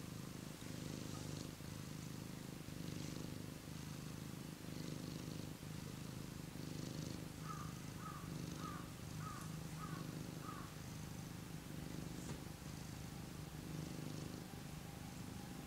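Domestic cat purring steadily, the low rumble swelling and fading in a cycle of about a second and a half as it breathes in and out.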